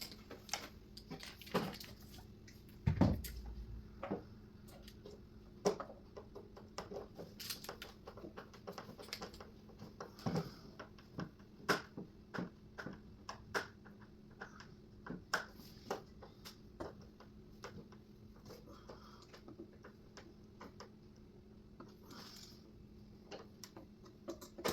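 Irregular small clicks and taps of hand-driving small screws and handling hardware on a flat-pack cabinet, with a dull thump about three seconds in, over a faint steady hum.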